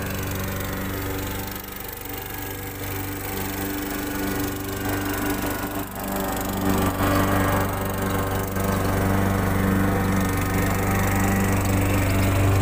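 Gasoline walk-behind push lawn mower engine running steadily while cutting grass, growing louder about halfway through as the mower comes close.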